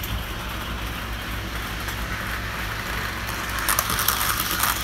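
Hornby BR Standard Class 9F model locomotive running on the layout track: a steady running noise of its motor and wheels, turning into rapid clicking and rattling as it passes close by about three and a half seconds in.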